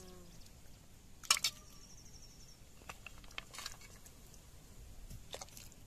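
A steel ladle scooping goat leg soup in a pot: faint wet sloshing with a few sharp knocks of the ladle against the pot, the loudest about a second in. A brief high trill in the background about two seconds in.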